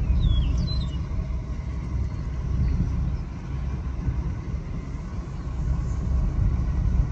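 Steady low road and wind rumble of a car driving along, with a few brief high chirps in the first second.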